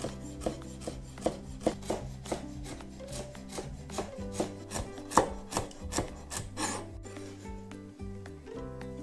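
Chef's knife chopping fresh dill on a wooden cutting board: a run of quick knife strikes, roughly two to three a second, that stops about seven seconds in. Soft background music plays underneath.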